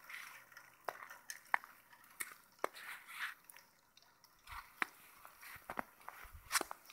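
Irregular crunching and squishing steps through deep fresh snow, with scattered sharp clicks.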